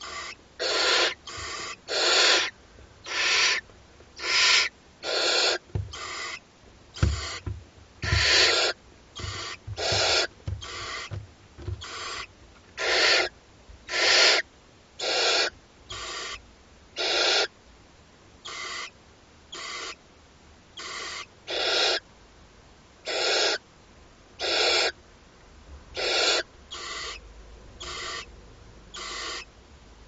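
Barn owl chicks giving their hissing, snore-like begging calls, about one call a second, each lasting about half a second. A few low thumps from the chicks shifting on the nest-box floor come between about six and eleven seconds in.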